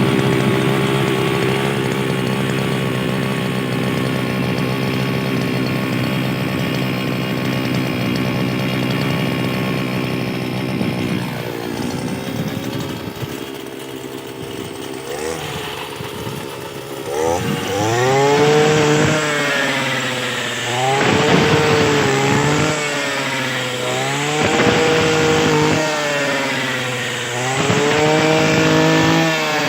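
Small 35 cc four-stroke engine of a hand-push wheat reaper running at a steady speed, easing off a little about halfway through, then revving up and down again and again, its pitch rising and falling every second or two.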